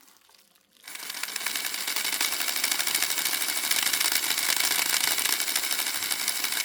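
Motor and gear train of a Rivarossi Casey Jones 4-6-0 model locomotive starting up about a second in and running with a steady, fast mechanical whir. It is running in reverse, the direction in which it goes smoothly rather than locking up.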